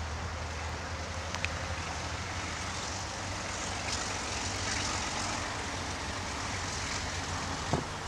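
Alco RSD16 diesel-electric locomotive working toward the listener at the head of a loaded coal train: a steady, low, pulsing engine rumble, with a sharp knock near the end.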